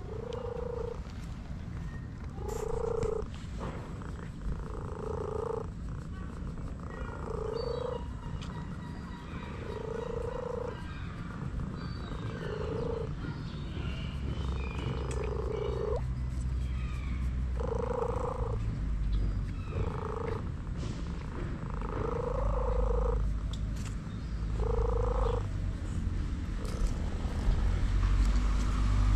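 A cat purring in steady rhythmic pulses, one with each breath about every two seconds: a content cat being stroked and massaged. A low rumble builds up in the second half.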